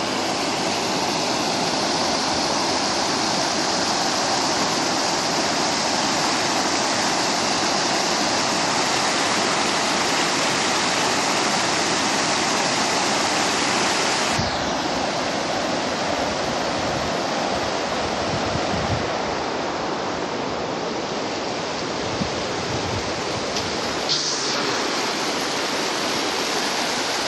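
River water spilling and churning over a low stone weir: a steady rushing noise that softens slightly in its higher part about halfway through.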